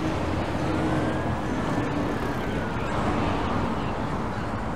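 Steady city street traffic noise of running vehicles, with a low hum that fades out about three and a half seconds in. A faint high tone rises and then falls once over about three seconds.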